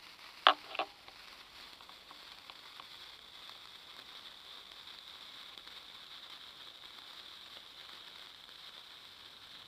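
Hand-held sparkler burning with a soft, steady fizzing hiss and faint crackles. Two sharp clicks about half a second in.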